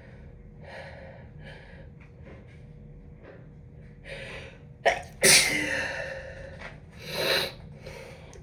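A person with a head cold sneezing: faint breaths for a few seconds, then one loud sneeze about five seconds in that trails off over about a second. A shorter, quieter burst follows about two seconds later.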